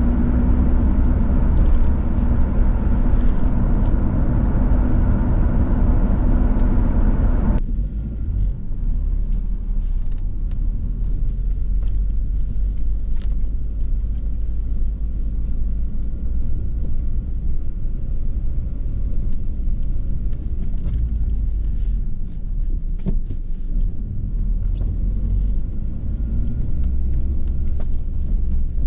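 In-cab drive noise of a 2010 Ford Ranger pickup with the 2.3-litre four-cylinder engine: a steady low engine and road rumble. About eight seconds in, the higher road hiss drops away abruptly, leaving only the low rumble.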